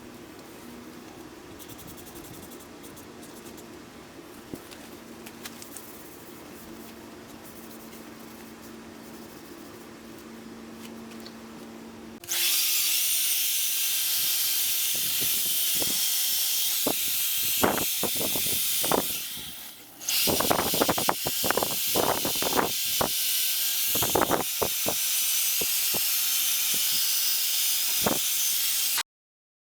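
Cleaning the bench vise's metal parts: after a low steady hum, a loud, steady hiss starts suddenly about twelve seconds in, with knocks and clicks through it and a brief drop near twenty seconds, then cuts off just before the end.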